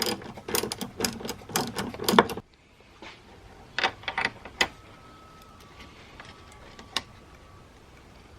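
Ratchet wrench clicking as the small bolts holding a car's trunk strut are loosened: a run of rapid, irregular clicks for about two and a half seconds, then a few single clicks.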